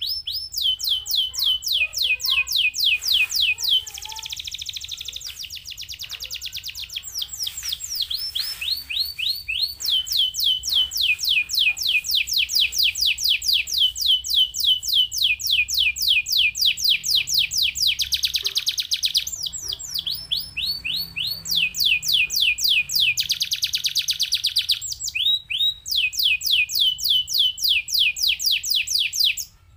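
Domestic canary singing a long, fast song: runs of quickly repeated falling notes broken by a few buzzing rolls, cutting off suddenly near the end.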